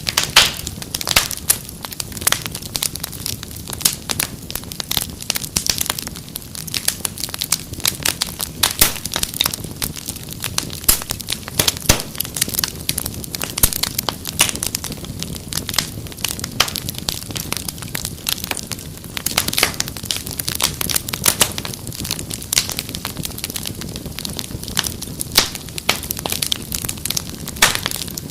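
Wood fire crackling: dense, irregular snaps and pops over a low, steady rumble of burning.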